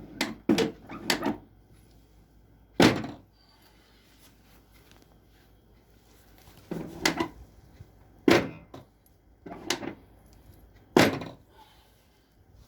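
Repeated sharp thuds and knocks, irregularly spaced and some in quick groups, from a chiropractic treatment table as spinal adjustments are given.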